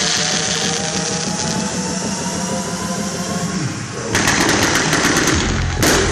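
Fireworks going off: a steady hiss with faint rising tones, then about four seconds in a sudden rapid crackling burst, followed near the end by a deeper bang with more crackle.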